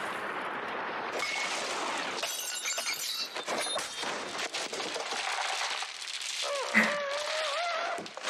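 Film soundtrack of a gunfight: a pistol shot fired through a cereal box among crashing and shattering noise, with a voice crying out near the end.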